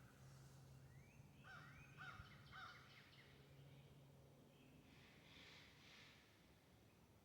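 Near silence with a faint low steady hum and faint bird calls, a short run of rising calls between about one and three seconds in.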